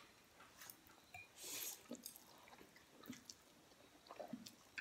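Faint sounds of people eating instant noodles with chopsticks: slurping and chewing, with scattered soft clicks and a short slurp about a second and a half in.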